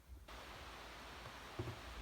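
Steady faint hiss of recording noise, with a soft low thump near the end.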